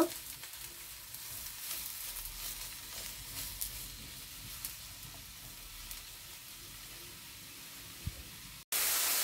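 Sliced button mushrooms sizzling in oil in a non-stick frying pan over raised heat as they give off their water, stirred with a spatula that makes occasional light scrapes and taps. Near the end there is a brief dropout, then a much louder steady sizzle.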